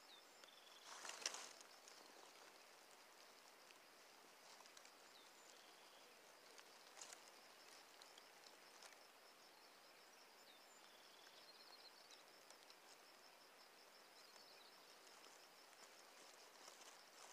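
Near silence: faint outdoor ambience with a steady high-pitched trill and a few faint chirps, broken by a brief rustle about a second in and another around seven seconds.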